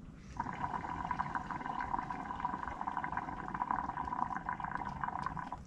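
Liquid being poured steadily into a glass for about five seconds, starting just after the pause begins and stopping shortly before speech resumes.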